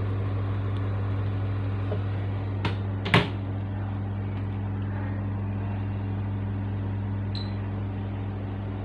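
Oven door swung shut, a light click and then a louder clunk about three seconds in, over the steady low hum of the running oven.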